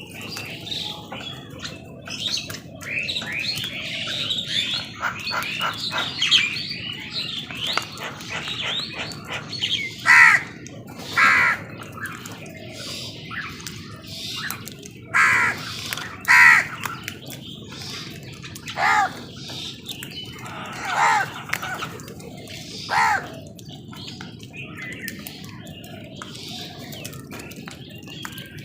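Crows cawing: about eight loud, harsh caws, mostly in pairs a second or so apart, beginning about ten seconds in. Before them, a dense run of quick twittering chirps from small birds fills the first third.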